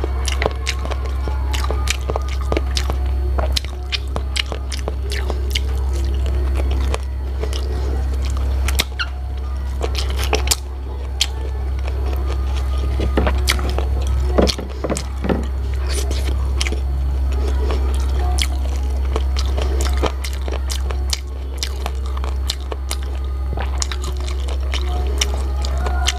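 Close-miked mouth sounds of eating adobo-braised chicken feet and rice by hand: many sharp wet smacks and chewing clicks over a steady low hum.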